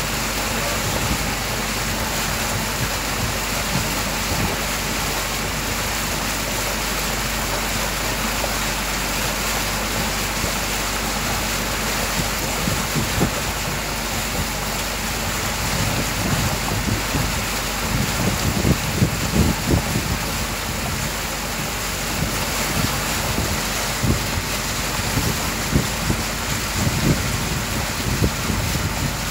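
Boat under way across a lake: a steady hum with water rushing and lapping along the hull. Wind buffets the microphone in irregular gusts from a little past halfway.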